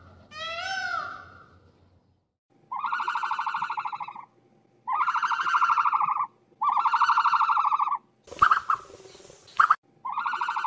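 A white peafowl's wailing, meow-like call with a pitch that rises and falls, near the start. Then a series of four long, buzzy, rapidly pulsing calls, each about a second and a half, broken between the third and fourth by a short hiss with two sharp loud snaps.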